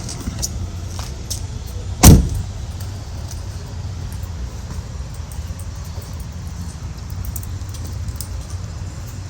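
Steady low rumble of a vehicle driving, with light rattling clicks and one sharp, loud thump about two seconds in.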